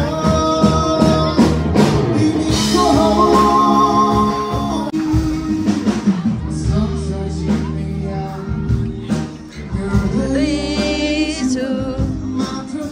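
A song with a singing voice over instruments; the singer's held notes waver near the end.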